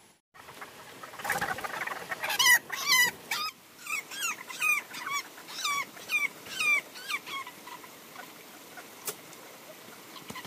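An animal crying out over and over in a rapid run of short, bending calls, about two a second, that thins out and stops a few seconds before the end.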